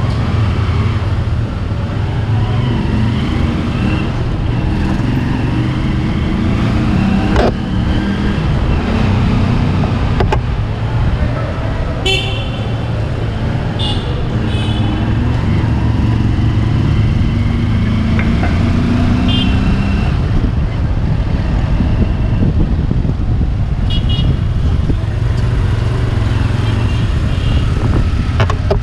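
Motorcycle engine running steadily while being ridden, with traffic around it. Several short vehicle horn beeps come about halfway through and again later.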